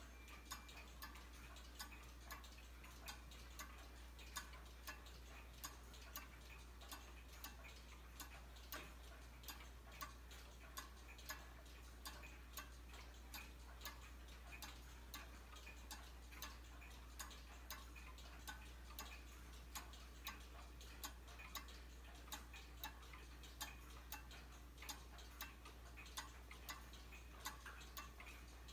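Faint, steady ticking of a large weight-driven Black Forest cuckoo clock: the pendulum escapement of its mechanical movement, with sharp, evenly spaced ticks.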